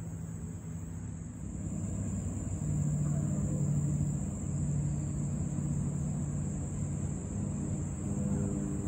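A steady engine drone, a low hum with overtones, that grows louder about two seconds in and then holds. A thin steady high-pitched hiss runs above it.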